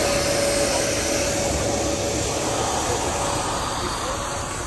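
Steam locomotive hissing steadily: a rushing noise with a faint whistling tone in it, easing slightly near the end.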